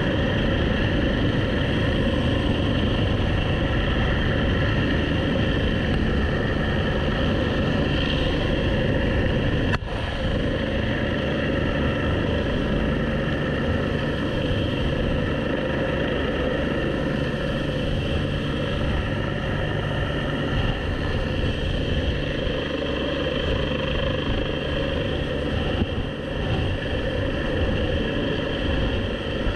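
Helicopter hovering directly overhead, its turbine engine and rotor running steadily, heard from the winch line below it. The sound dips briefly about ten seconds in.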